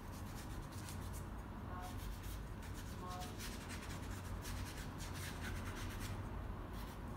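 A paintbrush scratching and rubbing across canvas paper in a run of short, irregular strokes, over a low steady hum.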